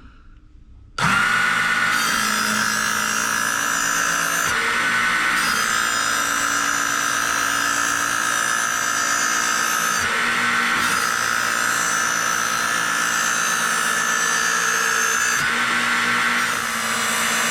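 Electric belt knife sharpener switching on about a second in and running steadily, its abrasive belt grinding a kitchen knife blade; the grinding tone shifts every few seconds as the blade is drawn through the guides.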